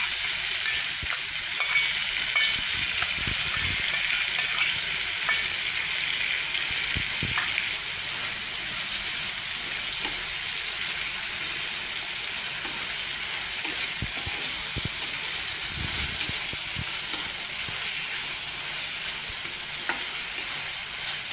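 Shredded vegetables in sauce sizzling steadily in a hot nonstick frying pan while a plastic spatula stirs and tosses them. Scattered scrapes and soft knocks of the spatula against the pan, a few heavier ones about 3, 7 and 16 seconds in.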